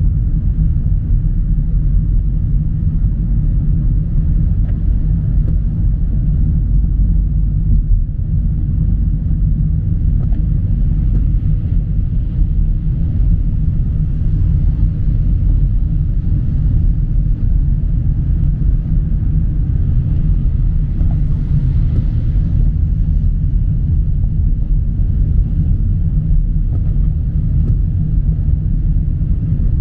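Steady low rumble of a moving car heard from inside the cabin, tyres on the road and engine together. A faint hiss sits above it with no change throughout, from the wet road and rain.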